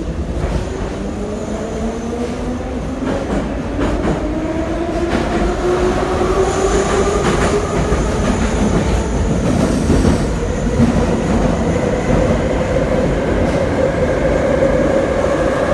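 Saint Petersburg Metro train pulling out of a station, heard from inside the car. The traction motors' whine rises steadily in pitch as the train speeds up, over a rumble of wheels on rails that grows louder.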